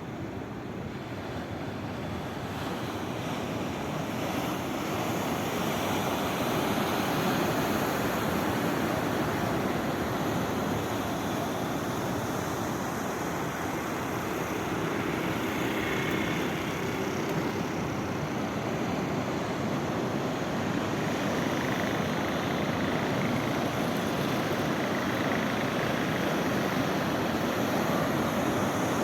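Sea waves washing in as a continuous surf noise, growing louder over the first few seconds and then steady.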